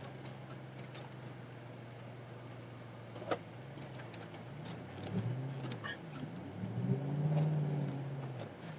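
Pickup truck engine heard from inside the cab. It runs steadily at first, then from about halfway the revs rise and fall several times as the truck is driven. A single short click comes a little past three seconds.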